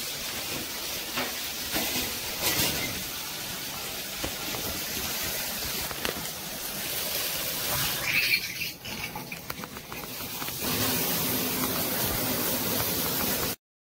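Water running in a shower over a tub, a steady hiss. About ten seconds in it becomes louder and fuller, then cuts off abruptly.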